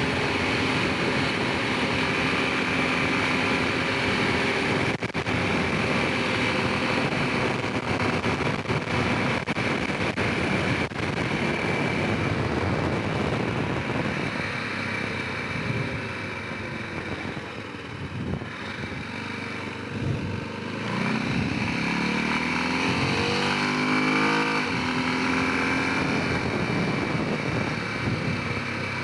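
Honda Rincon 650 ATV's single-cylinder four-stroke engine running under way. It eases off a little past the middle, then revs up and down several times. A few short knocks sound in the first half.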